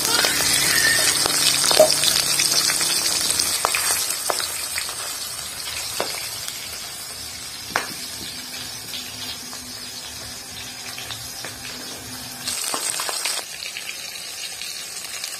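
Fish pieces rubbed with turmeric and salt, frying in mustard oil in an aluminium kadai. The sizzle is loudest in the first few seconds, then quieter, and flares again briefly near the end. A few sharp clicks come from a metal spatula knocking against the pan.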